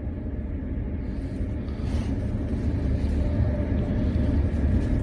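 Steady low rumble, with a faint steady hum over it.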